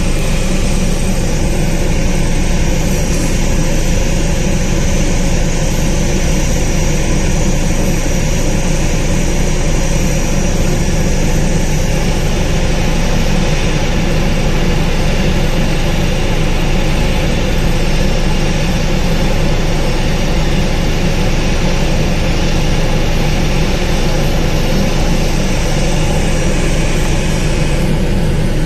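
Boeing 737-800's CFM56 jet engines running steadily after pushback, with a deep rumble and a constant whine.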